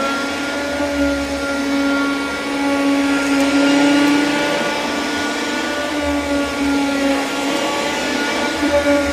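Vacuum cleaner motor running at full speed, a steady whirring hum over a rushing whoosh of air, starting to wind down with a falling pitch at the very end.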